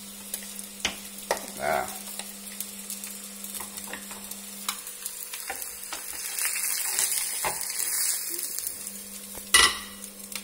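Fried egg sizzling in hot oil in a small frying pan, a steady hiss that swells for a couple of seconds as the pan is tipped over a plate, with light clicks and scrapes of the pan. Near the end, one loud knock as the metal pan is set back down on the stove.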